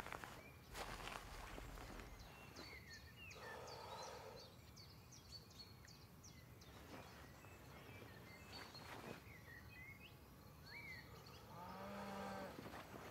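Quiet rural ambience: small birds chirping on and off, with two longer calls from a distant animal, one in the first half and one near the end.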